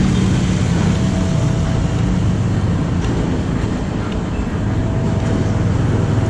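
Street traffic noise: motorcycles passing close by at the start over a steady low engine hum.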